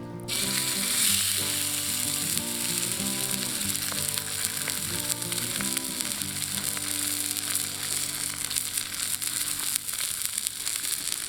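Olive-oil-marinated spare ribs sizzling and crackling as they cook over a campfire; the sizzle starts suddenly just after the start.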